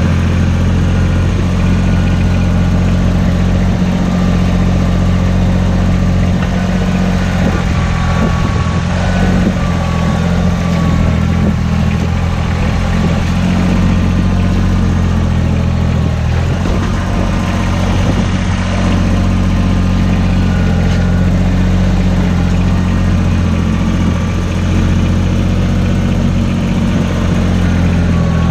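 Kubota BX25 compact tractor's three-cylinder diesel engine running steadily close by while its front loader carries and lowers a heavy wooden beam.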